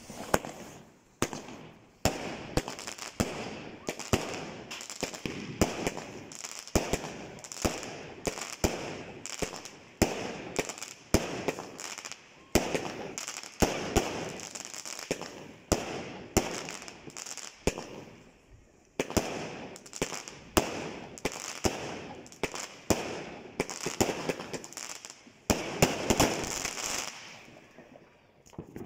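'Tornado' fireworks battery firing aerial shots in quick succession: sharp bangs about one to two a second, each trailing into the crackle of bursting stars. There is a short lull about eighteen seconds in, and the firing stops shortly before the end.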